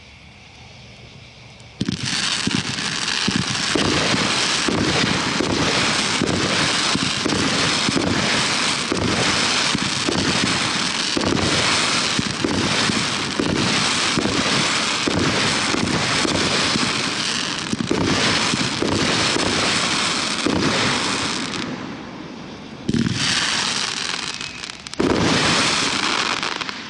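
A 500-gram, 23-shot consumer firework cake firing. A faint hiss in the first two seconds gives way to about twenty seconds of rapid shots mixed with dense crackling from gold crackling comets and spiders. After a brief lull, two final loud volleys come near the end.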